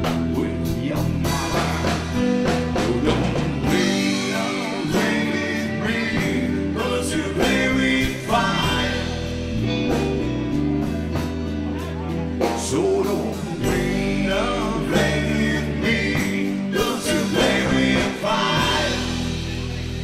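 Live rock band playing: electric guitars, bass guitar, drums and keyboards, with singing at times.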